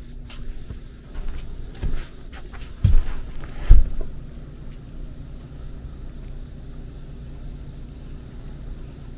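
Handling noise from a camera being moved and set down on a wooden floor: a few dull, close thumps about two, three and nearly four seconds in, the last the loudest, over a steady low hum.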